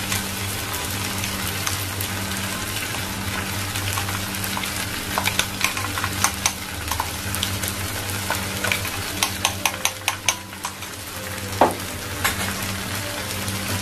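Prawns sizzling in oil in a non-stick frying pan, a steady frying hiss. From about five seconds in comes a run of light clicks and taps as crushed coconut is knocked out of a steel bowl into the pan.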